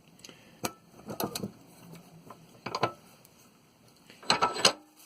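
Small metal clicks and knocks from handling a hot water tank pressure relief valve: a few separate clicks, then a louder cluster of knocks about four seconds in.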